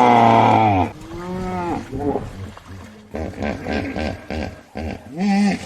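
Common hippopotamus calling: a long loud honk at the start, then shorter honks, including a quick run of about five pulses a second in the middle and one more short honk near the end.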